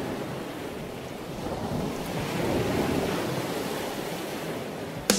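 Water rushing and churning in the wake of a moving boat, with wind buffeting the microphone, a steady noisy wash. A sharp click sounds just before the end.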